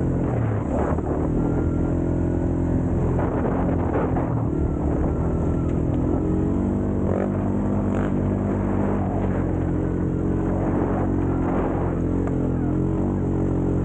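ATV engine running steadily while riding, its pitch shifting a few times with the throttle, with scattered knocks and rattles from the machine over the trail.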